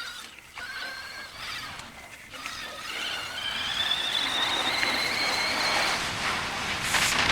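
CYC X1 Pro mid-drive motor on a 72V e-bike whining under throttle: two short whines, then from about three seconds in a longer whine that climbs in pitch as the bike picks up speed, with rushing wind and tyre noise building beneath it. A brief burst of noise near the end.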